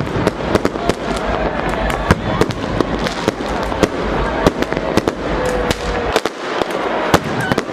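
New Year's Eve fireworks and firecrackers going off all at once: many sharp, irregular bangs and cracks, several a second, over a dense, continuous rumble of more distant explosions.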